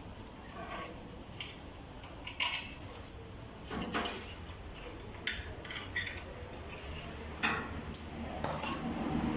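Irregular metallic clinks and knocks of tools and metal parts being handled while working on a seized concrete mixer's electric motor.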